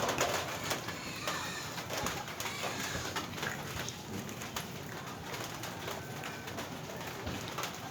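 Bird calls, among many small clicks and knocks.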